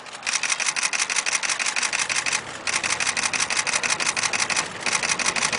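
Camera shutters firing in rapid continuous bursts, about ten clicks a second, in runs of roughly two seconds with brief pauses between.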